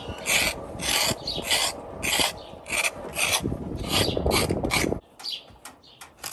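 Kitchen knife scraping the ridged skin off a ridge gourd (luffa) in short strokes about twice a second, fainter and sparser after about five seconds.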